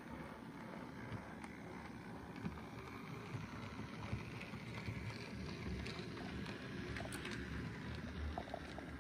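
On30-scale Bachmann Spectrum 4-4-0 model steam locomotive running along the track: a steady low rolling rumble from its motor and wheels, with a few light clicks.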